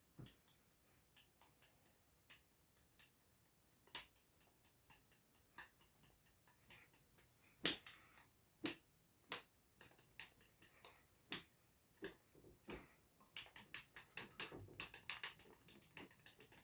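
Faint, irregular light taps and clicks, one here and there at first, a couple of louder ones about halfway through, then a quicker cluster near the end.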